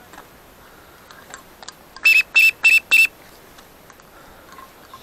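Four short, high whistle-like notes in quick succession, all at the same pitch, lasting about a second in all, starting about two seconds in.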